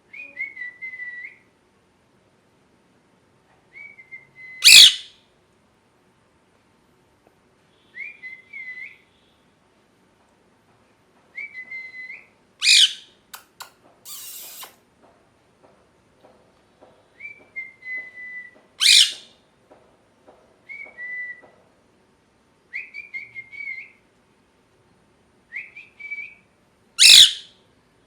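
Indian ringneck parrot giving short whistled chirps every few seconds, broken four times by a loud, harsh shriek.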